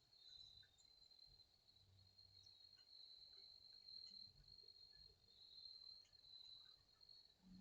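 Crickets trilling faintly, a steady high-pitched chorus that does not let up.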